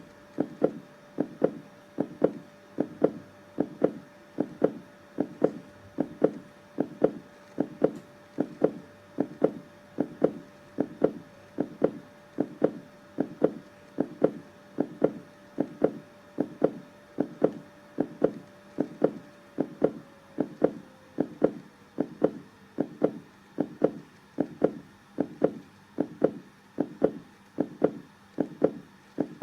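Human heartbeat, a steady, even rhythm of soft low thumps a little faster than one beat a second. A faint steady hum sits underneath and slides down and fades about two-thirds of the way through.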